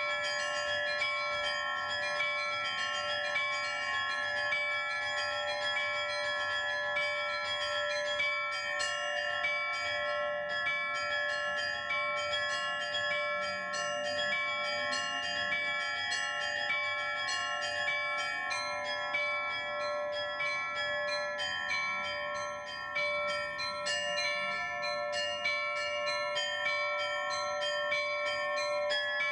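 Russian-style church bell ringing (zvon): small bells struck in quick, repeating patterns over larger bells that ring on steadily.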